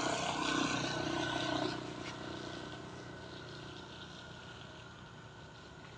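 An engine running, with a steady hum that is loudest for the first two seconds and then fades away gradually.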